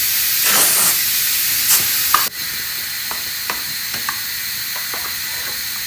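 Air hissing out of a bicycle inner tube through its valve stem as the tube is let down, cutting off sharply about two seconds in. A few light clicks and taps follow.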